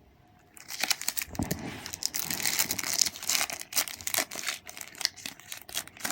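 Crinkly foil wrapper of a Match Attax trading-card packet being torn open and crumpled by hand. It is a dense run of crackling with many sharp clicks, starting about half a second in.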